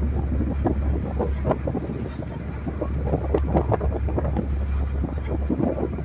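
Wind buffeting the microphone on a motorboat under way across open sea: a steady low rumble with irregular gusts, mixed with the rush of water splashing along the hull.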